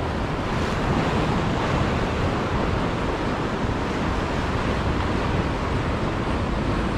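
Sea surf washing and breaking among the concrete tetrapods of a breakwater, a steady rushing wash, with wind buffeting the microphone.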